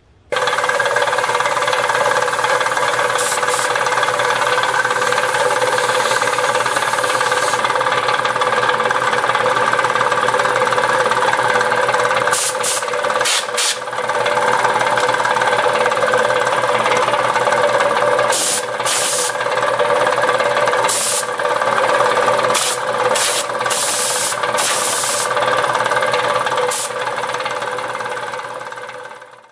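Restored 1929 air compressor running steadily, with short sharp hisses of air at irregular intervals. It starts abruptly and fades out near the end.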